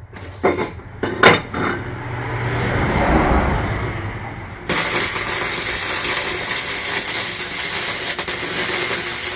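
A few knocks and a low hum, then about four and a half seconds in an electric welding arc strikes and crackles steadily as a weld bead is laid on steel gear parts, stopping just before the end.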